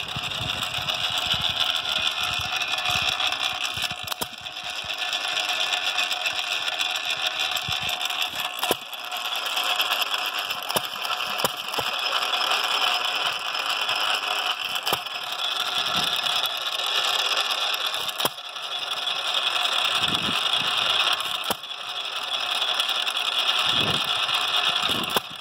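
1929 Hercules Model S 1¾ hp single-cylinder hit-and-miss engine running slowly, held down by its governor. Its gears and valve gear clatter steadily, with sharp clicks and an occasional low firing thump as it fires and then coasts.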